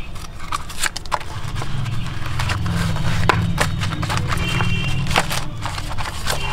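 Paper leaflets and stickers rustling and being handled as they are pulled from the mesh pocket of a zippered accessory case, with irregular clicks and taps. A steady low hum runs underneath.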